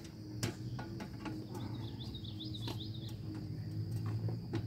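Scattered knocks and taps, about six in all, from a man climbing an aluminium articulating ladder onto a corrugated metal roof. They sit over a steady low hum and a steady high insect drone. Quick bird chirps come in through the middle.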